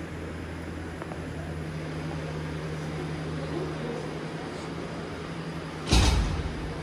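Steady low machine hum with a faint background hiss, like a building's ventilation plant, broken about six seconds in by one loud thump.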